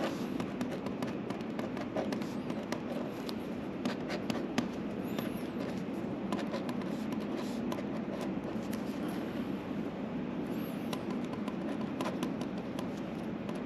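Ballpoint pen writing on paper: irregular short scratches and taps of the pen strokes over a steady low background noise.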